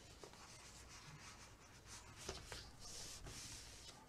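Faint rustling and rubbing of paper box pieces being handled and laid flat on a craft mat, with a couple of small taps about two seconds in.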